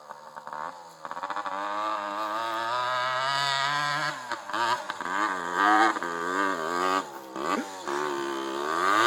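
Yamaha DT 80's two-stroke single-cylinder engine revving up and down as the dirt bike rides over rough ground, faint at first and growing louder as it comes closer, with brief dips in revs along the way.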